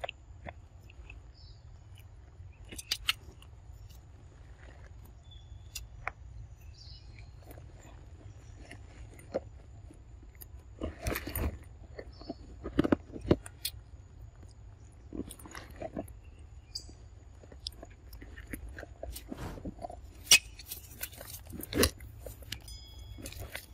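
A macaque biting and chewing fruit close to the microphone: irregular wet crunches and clicks, with the loudest bunches about eleven to thirteen seconds in and again near the end.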